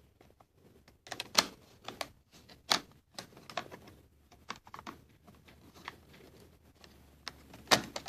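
Plastic memory-compartment cover on the underside of an Acer Aspire One netbook being pushed back into place by hand: scattered light plastic clicks and taps, a few of them sharper, one near the end.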